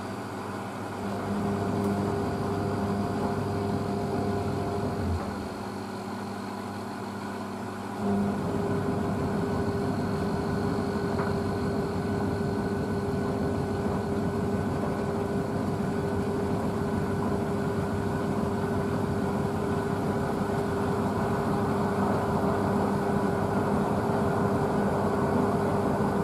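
Blomberg WNF9448 front-loading washing machine spinning its drum on an intermediate spin: a steady motor hum with a held whine. It eases off about five seconds in and picks back up about three seconds later, then runs steadily.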